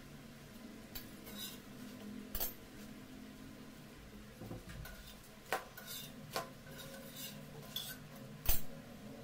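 Metal kitchen tongs clicking and clinking about six times, sharp metallic clicks spaced irregularly, with the loudest near the end.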